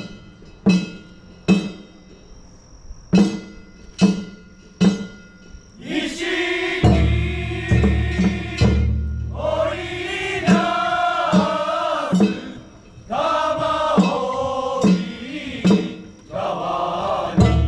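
Festival drum struck in single sharp beats, six in the first five seconds. Then a group of voices begins chanting together in long held phrases with short breaths between, while the drum beats carry on beneath.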